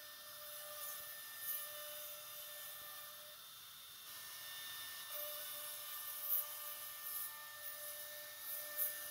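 CNC router spindle whining steadily as its bit cuts decorative grooves into a wooden door panel, over a steady hiss, with a few brief sharp crackles.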